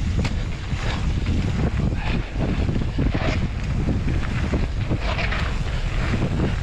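Heavy wind noise on an action camera's microphone over the rumble and rattle of a mountain bike riding fast down a dirt trail, with short surges of tyre hiss on the loose dirt.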